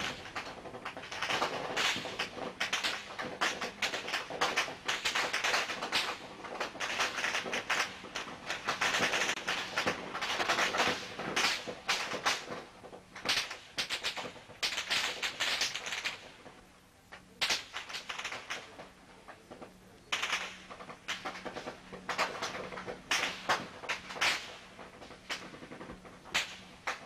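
Rapid, irregular bursts of automatic gunfire, cracks coming in dense volleys, with a lull of a few seconds past the middle before the firing picks up again.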